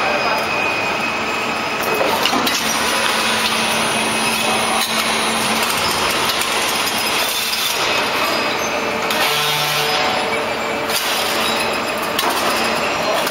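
Machinery of a slit coil packing line running: a steady, loud mechanical din with scattered clinks and knocks, and faint hums that come and go.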